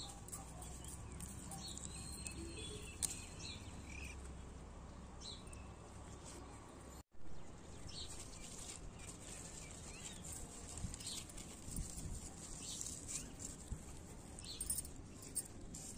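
Quiet outdoor ambience with small birds chirping now and then, and light rustling and clicks as leaves are handled. The sound cuts out for an instant about seven seconds in.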